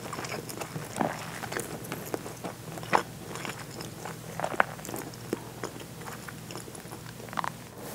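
Close-miked chewing of seared bonito (katsuo no tataki) with sliced green onions: soft wet mouth sounds and smacks with scattered sharper clicks, the loudest about three seconds in and again just past four and a half seconds.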